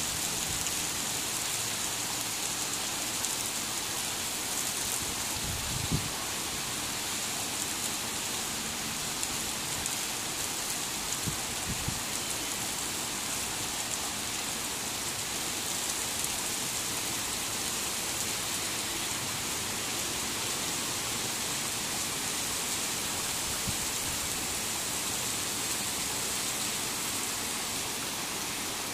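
Torrential rain falling steadily, an even hiss of downpour with a few brief dull knocks, the loudest about six seconds in.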